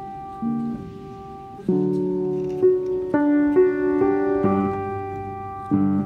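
Background instrumental music: notes and chords struck about once a second, each left to ring and fade.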